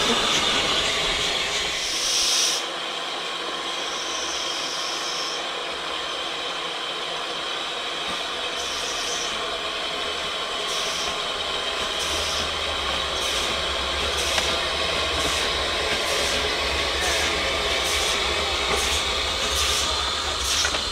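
George England 0-4-0 saddle-tank narrow-gauge steam locomotive hissing steam, then setting off: exhaust chuffs start about nine seconds in and come faster and faster as it picks up speed, with a low rumble of the engine rolling past.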